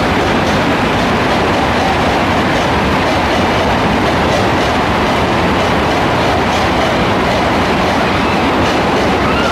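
Heavy rain pouring down steadily: a loud, even hiss with no let-up.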